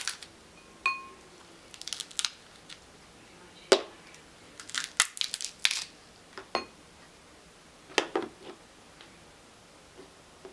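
Crab leg shells cracking and crunching as they are broken open, a series of sharp snaps in irregular clusters, with one short ringing clink about a second in.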